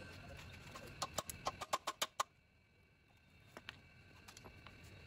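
A hammer striking metal parts of a stripped-down motorcycle frame and engine. About a second in comes a quick run of about ten sharp knocks lasting just over a second, followed by a few faint clicks.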